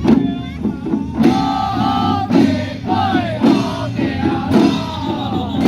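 Music with singing over a steady drum beat, about one stroke a second.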